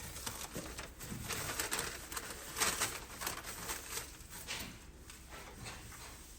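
A rag rubbing in repeated back-and-forth wiping strokes over the steel roll-cage tubing, cleaning it down for paint.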